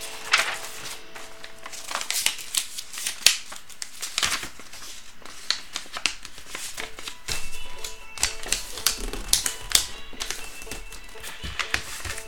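Paper rustling and crinkling as a white envelope is handled and folded, with scattered sharp taps and clicks, over quiet background music.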